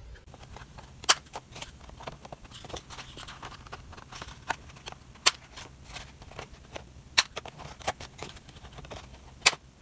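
Handheld corner rounder punch snapping shut four times as the corners of a cardstock envelope are rounded, with fainter clicks and paper rustling from handling between the snaps.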